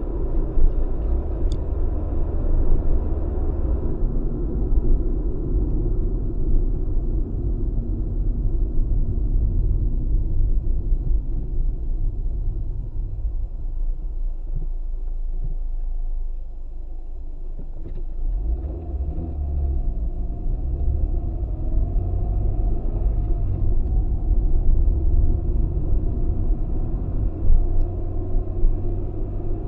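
Road and engine noise inside a moving Acura RSX's cabin: a steady low rumble. It quietens for a couple of seconds just past halfway as the car slows, then picks up again as it drives on.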